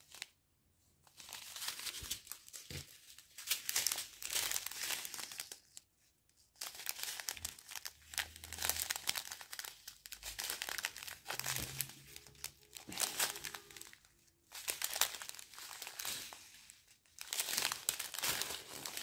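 Small clear plastic bags of round diamond-painting drills being handled and turned over, crinkling in several long stretches with short pauses between them.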